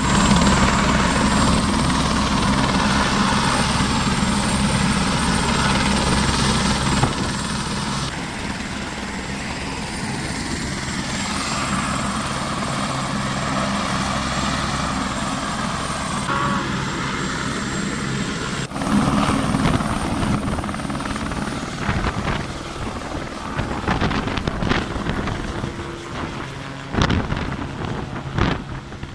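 Turbine helicopter running on the ground with its rotor turning, a steady engine whine over the rotor beat. About two-thirds of the way in the sound changes as it lifts off, and toward the end the rotor wash buffets the microphone in uneven gusts as it climbs away overhead.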